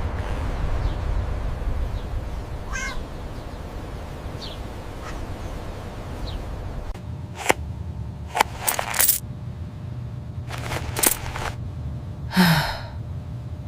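Several short, harsh animal calls over a steady low rumble, with one longer call near the end that falls in pitch.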